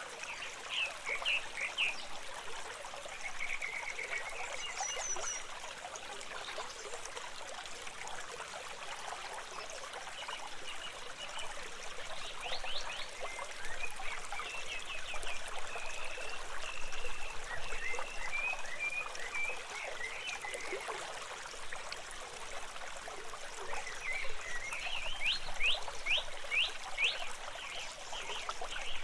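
Stream water trickling steadily, with frogs calling over it in clusters of quick, repeated chirping trills that come and go every several seconds.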